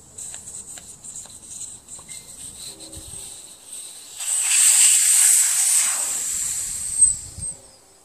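Air hissing out of a lawn tractor tire's valve stem as the valve core comes free under a valve core removal tool. After a few small clicks from the tool, a loud rush starts about four seconds in, eases off and stops about three seconds later as the tire deflates.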